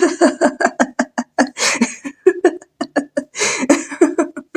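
A person laughing in a long run of short, rapid ha-ha pulses, broken by a couple of breathy intakes.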